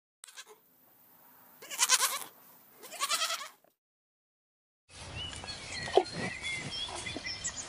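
Two short bleat-like calls from penned alpacas, about a second apart. After a break, outdoor ambience with small birds chirping and one brief low knock.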